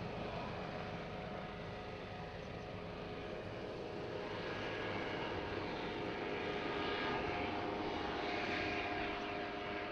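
Airbus H145M helicopter in display flight: its twin Arriel 2E turboshafts whine with several steady tones over rotor noise, the sound swelling louder in the second half as it passes closer.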